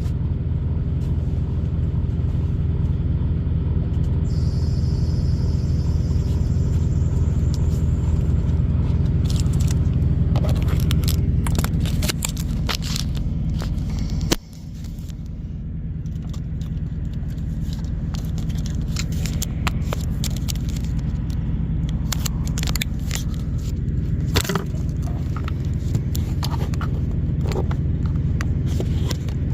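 Steady low rumble of an idling semi-truck diesel engine heard inside the cab, with scattered clicks and rustling from things being handled and one sharp knock about fourteen seconds in.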